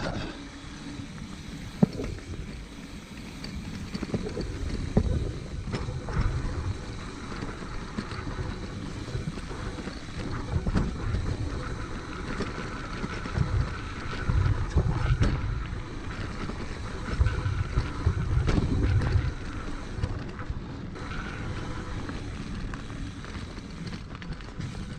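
Mountain bike ridden fast along dirt forest singletrack: wind buffeting the camera microphone, with tyres on dirt and the bike rattling over bumps in uneven surges, and a sharp knock about two seconds in.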